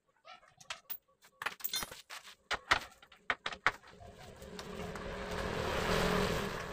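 Sharp metallic clinks and knocks of hand tools working on a Honda Supra X motorcycle's exhaust fastenings as the exhaust is removed, a dozen or so strikes over about two seconds. In the second half a passing vehicle's noise swells and then fades.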